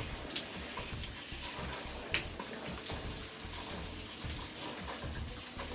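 Water spraying steadily from a filtered shower head, with a few small sharp clicks or taps, the sharpest about two seconds in.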